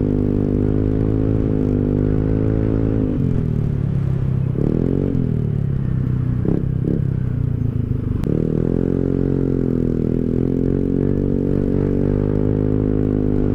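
Rusi Rapid 150 scooter's engine running through an aftermarket full-system exhaust while riding, holding a steady speed. The engine note drops as the throttle eases off about three seconds in, swings up and down in a few quick throttle blips a little past halfway, then rises back to a steady cruise about eight seconds in.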